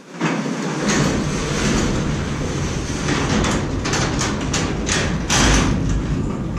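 Overhead garage door rolling open along its tracks, a continuous rumble and rattle that starts abruptly, with a series of sharp clacks in the middle. The rumble swells near the end, then dies away as the door finishes opening.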